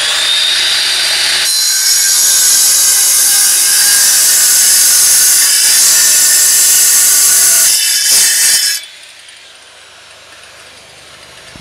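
Handheld angle grinder cutting through a thermal-faced stone slab: a loud, steady, high-pitched grinding whine that bites harder about a second and a half in and stops about nine seconds in.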